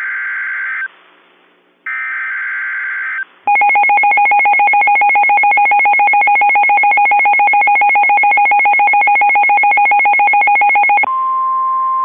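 NOAA Weather Radio emergency alert sequence for an extreme wind warning. First come two short screeching SAME header data bursts. Then a loud, rapidly pulsing two-pitch alarm tone runs for about seven seconds. It gives way to the steady single-pitch 1050 Hz warning alarm tone, which announces a warning.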